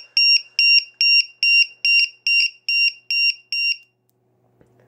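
Low-voltage alarm on a LiPo battery's balance lead, its piezo buzzers beeping a loud, high, even alarm at about two and a half beeps a second, a real racket. It is sounding because one cell at 3.68 V is below the 3.7 V threshold set on it, and it stops about four seconds in.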